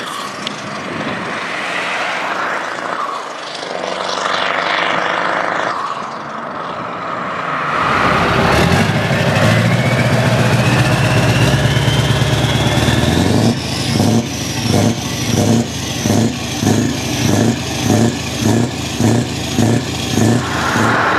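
A Scania truck's diesel engine pulling away along a road, then a heavy truck diesel running close to its open side-exit exhaust pipe, with a high whistle rising in pitch. About halfway through the engine is revved in a quick series of throttle blips, roughly three every two seconds.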